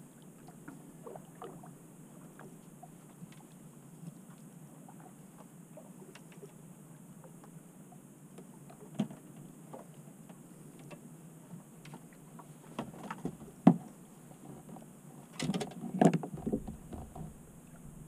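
Faint water sloshing around a small fishing boat, with scattered knocks and clunks from handling on board. The loudest come in a short burst a little after two-thirds of the way through, as a hooked fish is brought alongside to be landed.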